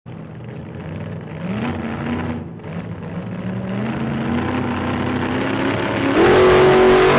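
A car engine accelerating: its note climbs, dips briefly about two and a half seconds in, climbs slowly again, and gets much louder about six seconds in.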